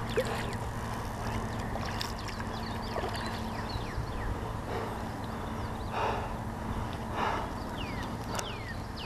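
Open-air river ambience: a bird calling in quick, downward-sliding chirps at the start and again near the end, over a steady low hum, with two soft swishes about two-thirds of the way through.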